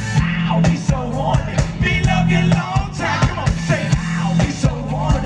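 Live funk band playing, with a steady bass line, regular drum hits, electric guitars and vocals over it.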